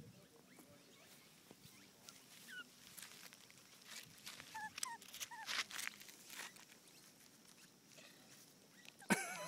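Australian magpie giving soft, short squeaks and chirps while being handled in the grass, among faint clicks and rustles. A louder call comes near the end.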